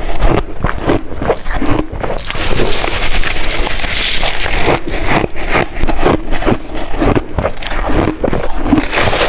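Close-miked crunching of crunchy shaved ice being bitten and chewed, a quick irregular run of crisp crunches that gets denser about three to five seconds in.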